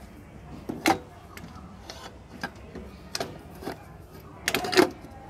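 Scattered clicks and knocks from the kick-start transmission cover of a Hero Maestro Edge scooter being pushed and seated onto the crankcase by hand. There is a sharp knock about a second in, and a louder cluster of knocks near the end.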